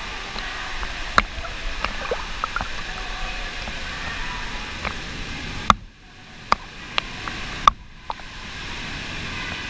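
Lazy-river water sloshing and splashing around someone wading, with sharp drips and plops throughout. Twice, about six and eight seconds in, the sound goes dull for a moment.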